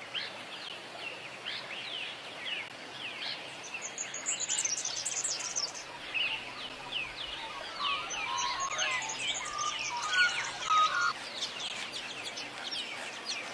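Many birds chirping together, a dense run of quick, high, downward-sweeping calls, with a few lower notes joining in about eight to eleven seconds in.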